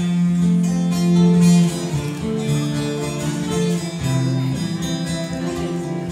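Live band music: an acoustic guitar and other instruments playing an instrumental passage of the song, with long held melody notes.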